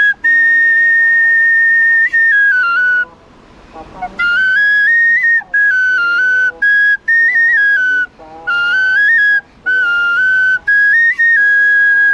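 A high, whistle-like melody of held notes stepping up and down, played in phrases with short breaks between them.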